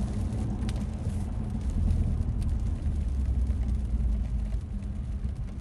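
Steady low rumble of road and tyre noise inside a moving car's cabin on a wet road.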